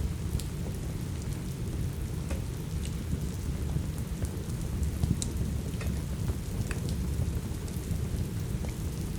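Steady rain with a deep, even rumble underneath, and scattered sharp crackles of a wood fire in a fireplace, a few a second.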